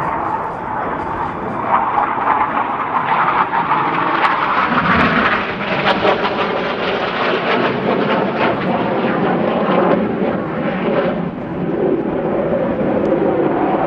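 BAE Hawk jet trainer's Rolls-Royce Turbomeca Adour turbofan rushing past during an aerobatic display. The noise swells in the middle and has a wavering, phasing sweep as the jet moves across the sky.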